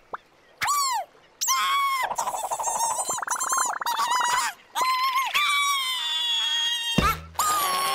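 A cartoon chick's squeaky, high-pitched wordless voice: short chirps and squeals that rise and fall, with a fast warbling trill in the middle. Near the end a quick steep falling swoop cuts in before the squeaking starts again.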